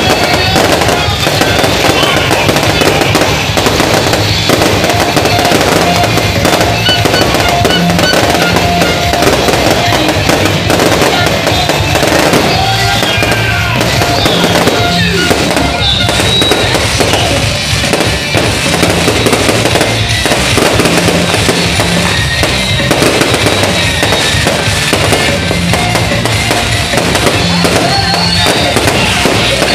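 Aerial fireworks bursting in a continuous barrage of bangs and crackling, with music playing in the background.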